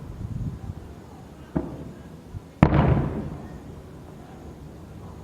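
Aerial firework shells bursting: a smaller bang about one and a half seconds in, then a loud boom about a second later, each with a rolling rumble that fades away.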